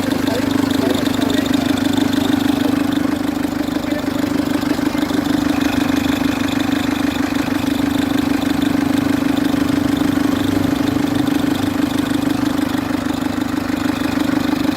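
Citroen C3 HDi diesel engine idling, with a loud, steady hum from the worn auxiliary/serpentine belt tensioner and belt, which are due to be replaced.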